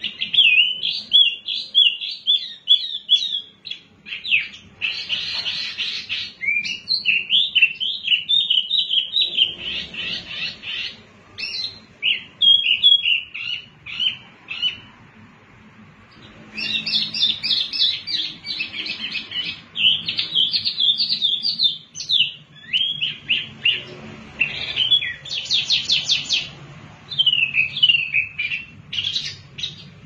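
Wambi ('mini hwamei') songbird singing a fast, varied song of quick chirping notes in phrases of a few seconds with short pauses between them, and a rapid trill near the end.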